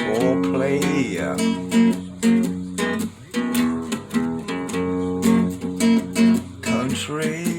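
Acoustic guitar strummed in a steady rhythm, playing chords without singing.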